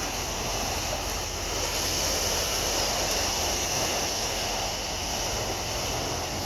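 Sea waves washing onto the shore in a steady hiss, swelling a little in the middle.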